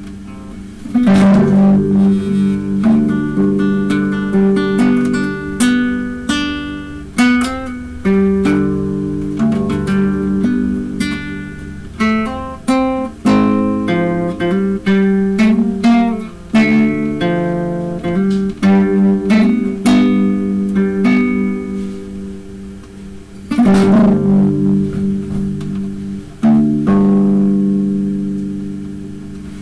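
Solo acoustic guitar, played as a mix of single plucked notes and chords. Strong strummed chords come about a second in and twice near the end, and the last one is left to ring and fade.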